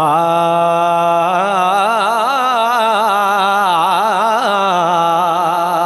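A man singing a Punjabi Sufi kalam without words at first. He holds one long note, then about a second in moves into a wavering, ornamented line.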